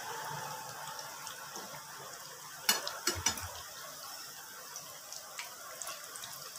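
Samosas deep-frying in mustard oil, a steady sizzle with small crackles. A few sharp clicks of a utensil against the pan come about three seconds in as the samosas are turned over.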